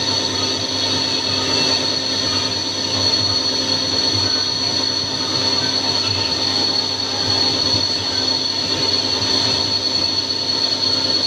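Wintec TC15 CNC lathe running with a steady high-pitched whine over a constant mechanical noise.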